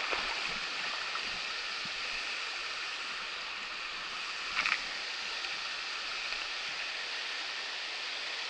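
Shallow river riffle running over rocks: a steady rush of water, with one brief sharp sound about halfway through.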